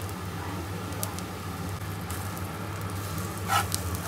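Besan chilla batter sizzling gently in a nonstick frying pan over a steady low hum, with a metal spatula scraping under the pancake about three and a half seconds in.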